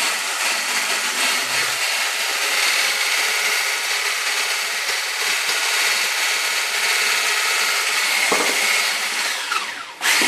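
Powermaxx 750 W hand blender with a whisk attachment running steadily, its whisk beating egg-and-sugar batter in a stainless steel bowl as oil is drizzled in. The sound dips briefly near the end, then picks up again.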